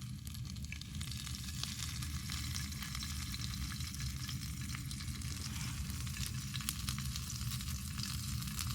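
Food sizzling in a pan over a wood campfire, a steady frying hiss full of tiny pops.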